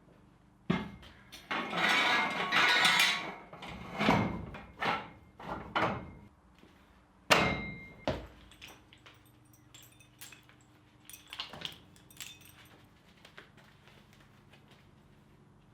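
Workshop handling noises: knocks and thumps, a rough scraping stretch, and one sharp metallic clang with a short ring about seven seconds in, then a few light clicks.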